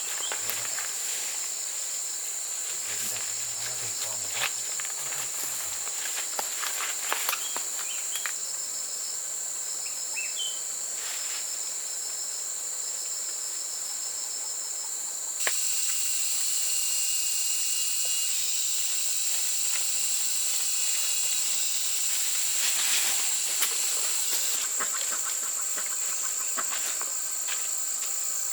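Steady high-pitched insect chorus, with scattered light clicks and rustles. It gets louder about halfway through.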